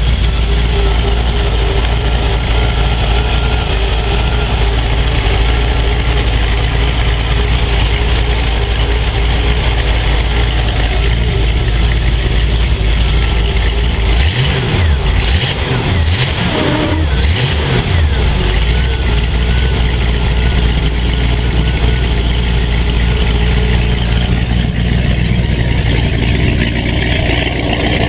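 Ford 351 V8 inboard marine engine in a Supra ski boat running steadily at idle. Its pitch rises and falls a few times about halfway through as the engine is revved up and back down. It idles and picks up smoothly after a Holley carburetor overhaul that cured its refusal to idle.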